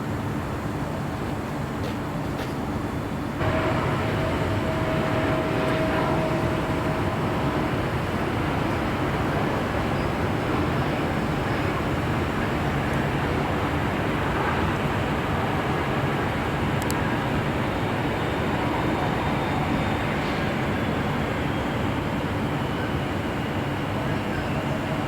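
Steady jet airliner engine noise, jumping suddenly in level about three seconds in, with a faint steady whine for a few seconds after the jump.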